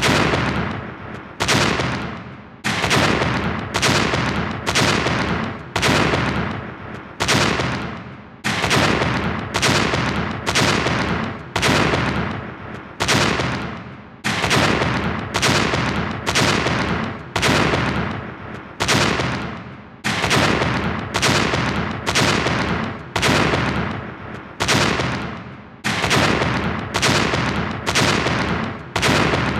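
A gunshot-like blast sound effect of a head being blown apart, looped over and over: a sharp bang that dies away over about a second, repeating roughly once every second or so.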